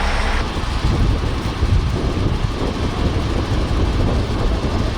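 Low, steady rumble of a heavy vehicle's engine running.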